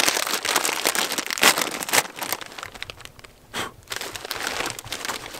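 A plastic snack bag of Flaming Hot Cheetos crinkling and crackling as it is handled, dense for the first two and a half seconds, then quieter rustling.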